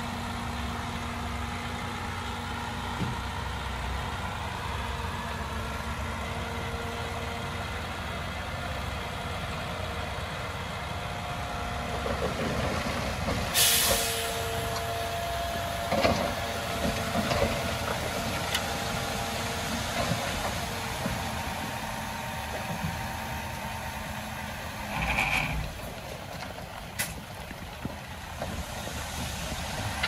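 Heavy diesel earthmoving machinery running steadily. There is a short burst of hiss about thirteen seconds in, followed by a few metal clanks.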